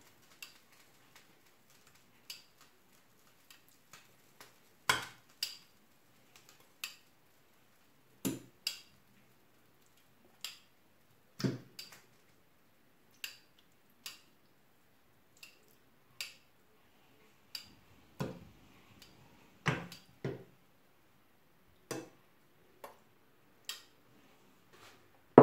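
Metal kitchen tongs clicking and clinking against a pan and steel bowl as strips of raw meat are laid into the frying pan one at a time: scattered single taps, sometimes two close together, at irregular intervals of about a second.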